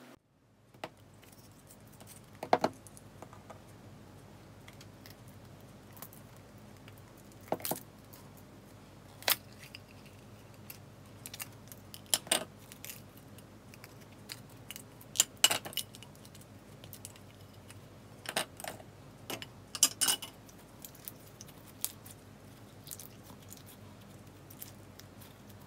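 Handling of slime and its hard plastic lollipop-shaped container: about a dozen scattered sharp clicks and taps with softer crackle between them, as the container is opened and bead-filled slime is squeezed in the hands.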